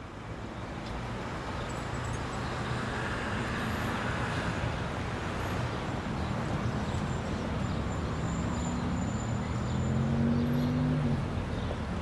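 Street traffic ambience: a steady rumble of road vehicles with a low engine hum that swells near the end.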